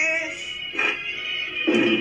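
Music: a wavering, voice-like melody over a steady high tone, with two short louder swells, about a second in and near the end.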